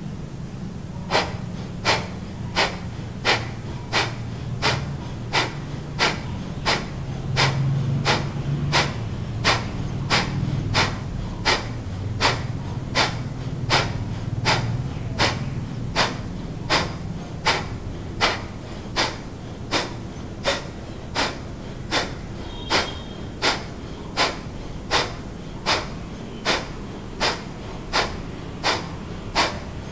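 Kapalbhati breathing: a woman's short, forceful exhalations through the nose, driven by the belly, in a steady run of about three every two seconds, starting about a second in. A low steady hum sits underneath.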